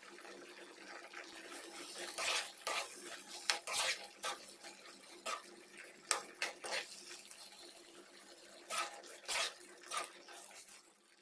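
A metal slotted spoon scraping and knocking against a nonstick pan as a thick curry is stirred, a dozen or so sharp scrapes and clicks over a soft steady hiss of the sauce simmering. It fades out just before the end.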